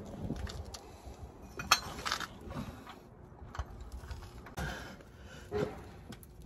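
Scattered light metallic clicks and clinks of a wrench working on a car's oil filter housing, a handful of separate taps spread over several seconds.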